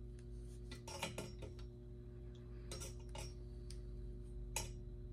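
Light metal clicks and clinks as a hand hook tool squeezes a J-hook shut on a steel trap's chain. There is a cluster of sharp clicks about a second in, a few more around three seconds, and one near the end, over a steady low hum.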